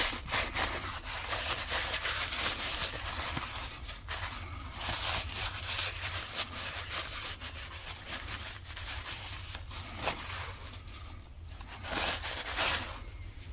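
Paper towel rubbing and rustling along a Damascus steel knife blade in repeated wiping strokes, buffing off metal polish. The strokes ease off briefly about ten seconds in, then pick up again near the end.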